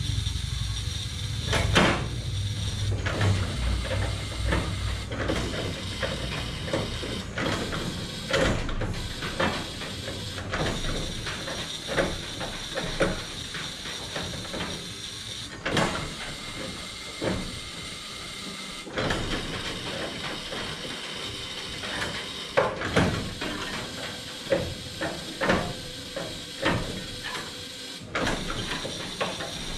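Irregular clanks and clicks of hands and tools at work in a 1927 Ford Model T's engine bay. A low rumble in the first several seconds dies away.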